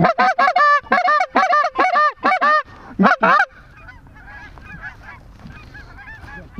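Goose calls blown hard in a fast run of short clucks, several calls a second, for the first two and a half seconds, then two more loud clucks just after three seconds. A flock of geese calls more faintly in the background after that.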